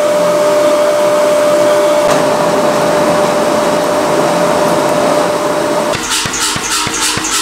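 A forge's air blower running with a steady roar and a constant hum; about six seconds in it gives way to a hammer striking red-hot wrought iron on an anvil, about three blows a second.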